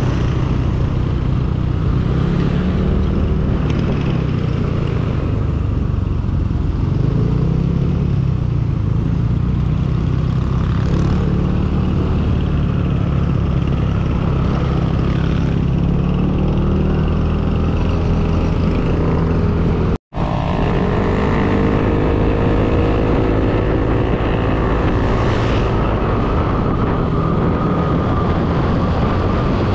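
Motorcycle engine running on the move, its pitch rising and falling with the throttle. The sound drops out for an instant about twenty seconds in, then the engine climbs in pitch as it accelerates.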